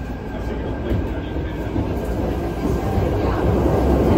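Interior running sound of a Keikyu 1000 series stainless-steel EMU in a subway tunnel, heard inside the car: low rumble and wheel-on-rail noise with the drive of its full-SiC VVVF inverter, growing steadily louder.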